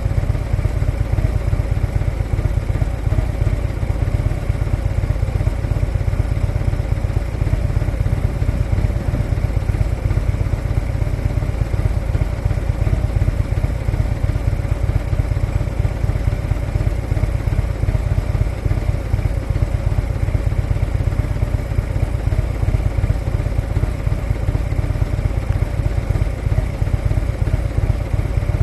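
Harley-Davidson motorcycle's V-twin engine running steadily at low revs, with an even level and no revving.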